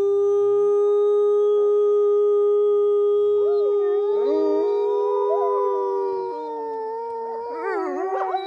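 A woman howling through cupped hands on one long, steady note, joined from about three and a half seconds in by wolves howling, several rising and falling howls overlapping. Her note stops at about six seconds, and the wolves' howls waver on to the end.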